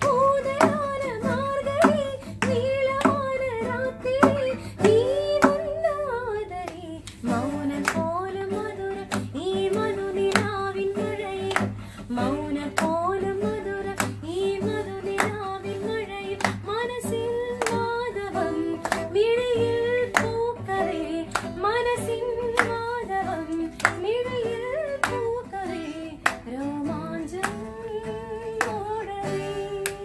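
A woman singing a slow melody to a strummed acoustic guitar. Steady hand claps keep the beat throughout.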